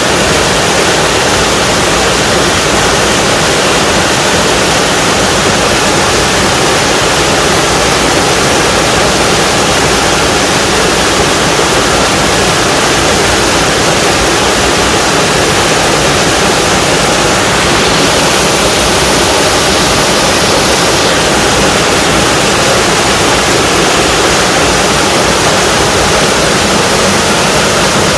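Small waterfall in a mountain valley stream, its water falling and rushing in a loud, steady roar.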